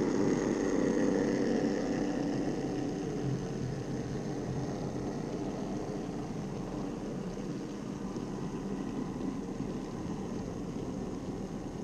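N-scale Minitrix V160 diesel locomotives hauling a model freight train past on the track: a steady hum and rolling rumble from the motors and wheels on the rails, easing off slowly as the train moves away.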